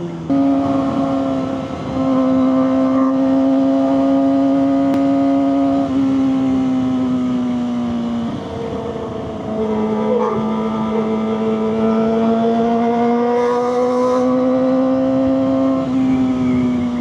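Kawasaki ZX-25RR's 250 cc inline-four running through a Leovince GP Corsa aftermarket exhaust, held at high revs while riding. The pitch dips briefly a few times, climbs slowly through the second half, then eases off near the end.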